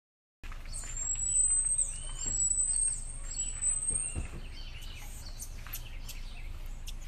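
Birds calling in the open: three thin, high whistles about a second long each, rising slightly and ending in a quick drop, then a run of short chirps, over a steady low rumble. The sound starts abruptly about half a second in.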